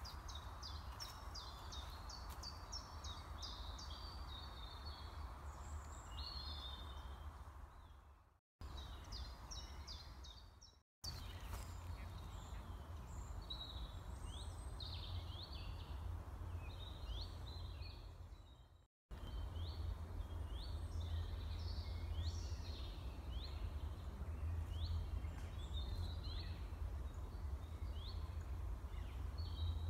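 Several songbirds singing outdoors, with quick, high chirps and trills that keep repeating, over a steady low wind rumble on the microphone. The sound cuts out briefly three times.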